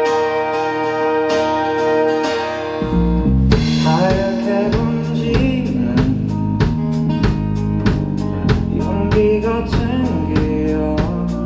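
Live rock band playing: a held guitar chord rings out, then about three seconds in the bass and drums come in with a steady beat and a voice sings over them.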